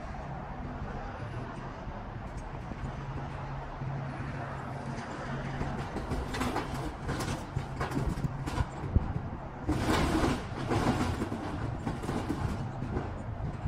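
A heavy engine running steadily at a low hum, with irregular knocks and rattles in the second half and a louder clattering burst about ten seconds in.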